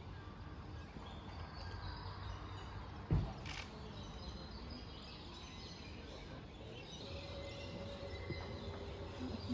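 Quiet outdoor ambience with faint bird chirps, and a single dull thump about three seconds in.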